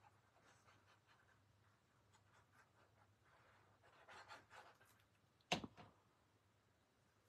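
Faint scratching of a liquid glue bottle's tip dragged across cardstock as glue is squeezed on in squiggles, then a single sharp tap about five and a half seconds in.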